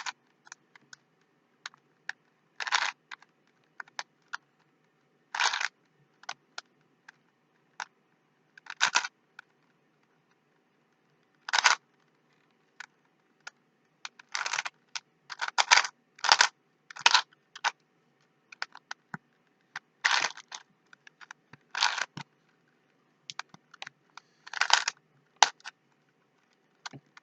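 Plastic Rubik's Cube being twisted by hand: short clacking layer turns every one to three seconds at an irregular pace, with lighter single clicks in between.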